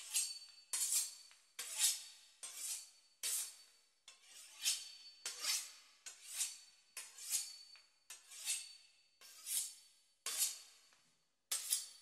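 A knife sawing back and forth through the crisp pastry crust of a beef Wellington, a rasping stroke a little over once a second.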